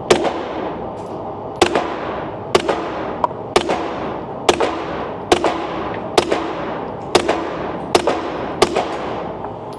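Ten suppressed 9mm pistol shots, about one a second, from a Glock 45 Gen 5 in a CAA MCK Gen 2 chassis fitted with a Dead Air Mojave 9 suppressor and firing 147-grain subsonic rounds. Each shot is a sharp report, most followed a moment later by a lighter clack, and the whole string sounds quiet.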